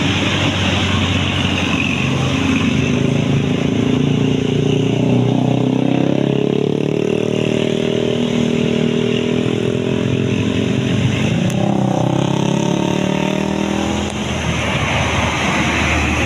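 Tour bus engine working hard as it accelerates through a bend, its pitch climbing slowly over several seconds, then dropping and picking up again near the end.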